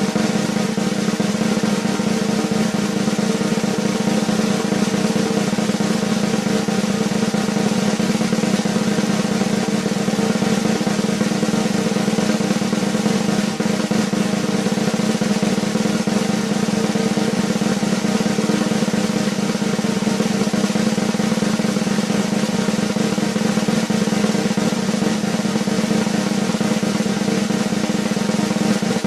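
Snare drum roll played continuously at an even level.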